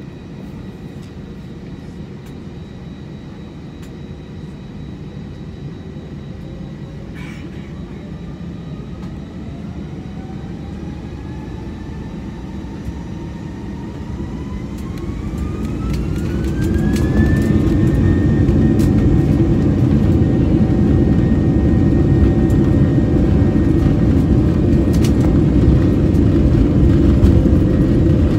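Airbus A321 jet engines spooling up to takeoff thrust, heard from inside the cabin. A whine climbs steadily in pitch for about ten seconds, then holds level. Under it a low rumble grows much louder and stays loud as the plane accelerates down the runway.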